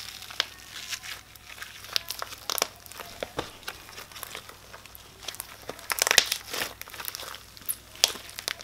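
Hands squishing and stretching jelly cube slime, a sticky glue slime mixed with cubes of magic eraser foam: a run of sticky crackles and pops, thickest about six seconds in.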